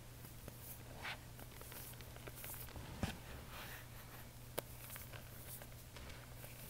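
Faint, soft swishes and crunches of hands working through loose white powder, with two light clicks about three and four and a half seconds in.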